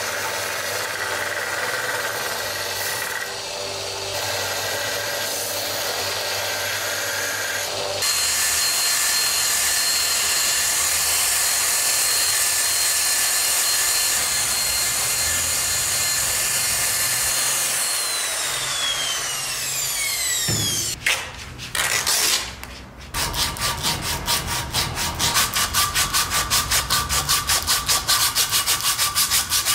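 A small belt grinder runs steadily as a wooden hammer handle is pressed against its sanding belt. After about eight seconds this gives way to a handheld power sander with a disc pad running on the wooden handle, a steady hiss with a high whine that falls away as the motor winds down. After a brief pause, hand sanding with aluminium oxide sandpaper follows: fast, even back-and-forth rubbing strokes on the wood.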